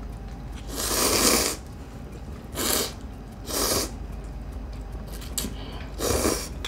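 A person slurping Shin Ramyun instant noodles in four noisy pulls; the first is the longest and loudest. A couple of light clicks come between the later slurps.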